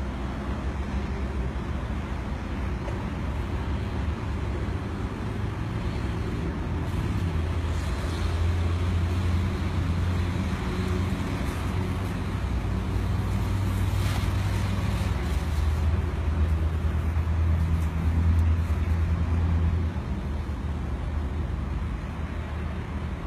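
A car on the move with a steady low drone. The drone grows louder about a third of the way in and eases off near the end. The uploader puts the noise down to a tyre.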